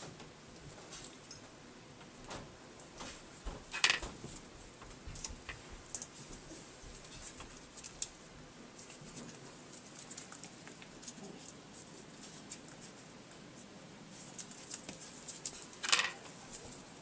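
Sheltie puppies' claws clicking and scrabbling on a tile floor as they wrestle, in scattered irregular clicks. Two brief louder noises stand out, about four seconds in and near the end.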